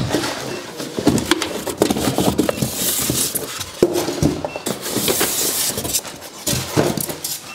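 Cardboard shipping box and its paper and plastic packing being pulled about and rummaged through: rustling and scraping with many scattered knocks and taps, densest in the middle.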